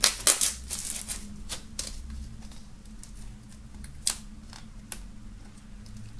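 Plastic shrink-wrap on a cardboard CD sleeve crackling and ticking as fingers pick at it to get it open. It makes a scatter of sharp clicks, the loudest in the first half second and another about four seconds in.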